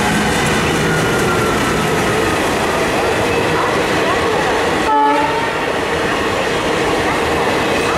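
Diesel-hauled passenger express coasting past: a steady rumble with the clatter of wheels over rail joints, and one short horn toot about five seconds in.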